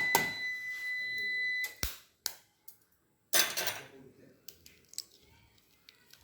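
A steady, high-pitched electronic beep lasts about two seconds and ends with a sharp knock. A short burst of rustling noise and a few light clicks follow.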